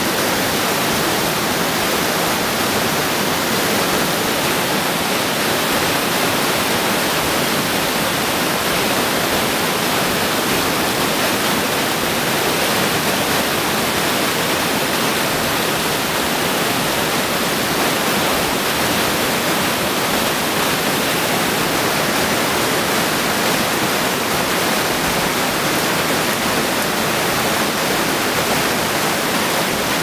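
Steady rushing water: an even, unbroken hiss that holds the same level throughout.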